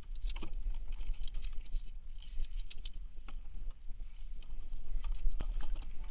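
Sea water dripping and splashing from a crab scoop net full of seaweed as it is swung and tipped into a plastic tub, with scattered clicks and a few knocks from the net and tub, over a steady low rumble.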